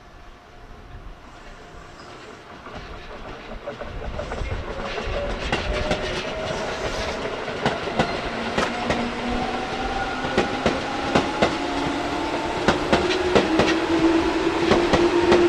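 Tobu electric train drawing closer and accelerating: its traction motors whine in slowly rising tones while the wheels clack over rail joints, louder and more frequent toward the end.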